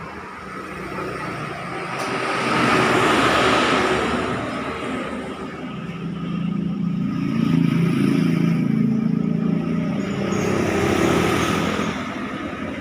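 Honda Absolute Revo 110 cc single-cylinder four-stroke motorcycle engine being ridden and revved on a test ride after a tune-up. It swells louder about two seconds in and again for a longer stretch past halfway.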